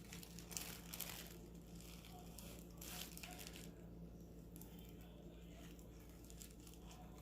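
Packaging crinkling as jewelry is unwrapped: short rustling bursts about half a second in and again around three seconds in, over a faint steady hum.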